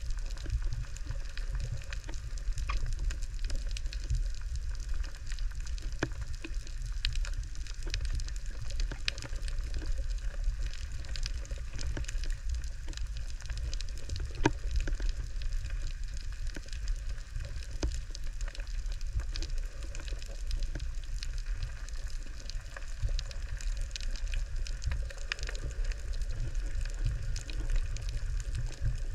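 Underwater reef sound: a constant dense crackle of fine clicks, the crackle of snapping shrimp, over a steady low rumble of water against the camera housing, with one sharper click about halfway through.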